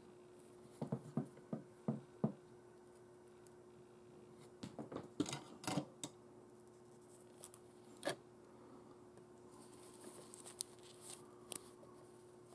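Hands handling a small plastic model part and its thin wires on tissue paper: a quick run of taps and clicks about a second in, another cluster a few seconds later, then a single click and lighter scattered ticks and rustles, over a faint steady hum.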